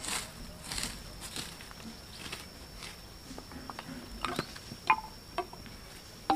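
A hand hoe scraping and chopping into dry soil in a few soft strokes, then bamboo sticks clacking and knocking together as they are handled and dropped. The loudest knock comes about five seconds in.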